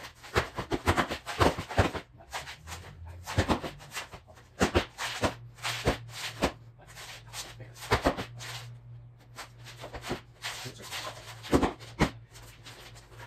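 Sneakers stamping, shuffling and scuffing on a concrete garage floor during Bajiquan footwork: irregular sharp thuds and slaps, several a second, over a steady low hum.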